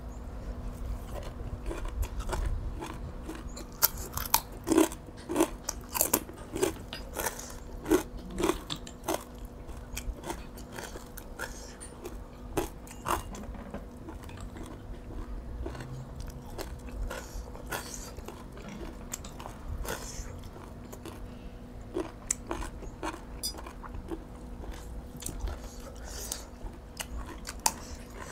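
A person eating: crisp crunching bites and chewing of crunchy food, loudest and densest about four to nine seconds in, then sparser.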